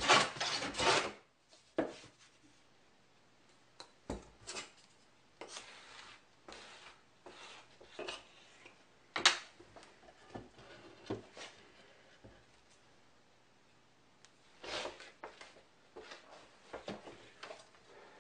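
Wood glue being squeezed from a plastic bottle and spread over oak boards with a spreader, with scattered light clicks, knocks and rubbing as the bottle and boards are handled on a workbench; one sharp click about nine seconds in.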